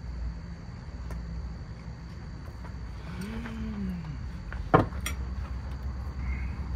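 A man's low closed-mouth "mmm" while chewing a mouthful, rising then falling in pitch, about three seconds in. A sharp click follows about a second later, over a low steady rumble.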